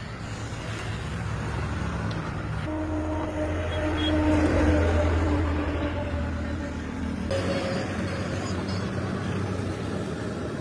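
A motor vehicle passing on the road: an engine drone grows louder to a peak about four to five seconds in, then fades, over a steady low road rumble.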